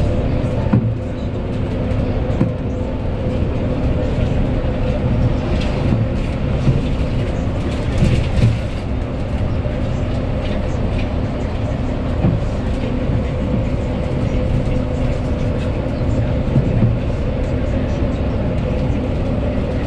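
Cabin noise of a moving bus: the engine and tyres make a steady low drone with a constant hum. A few short knocks and rattles come through from the bus body as it goes over the road.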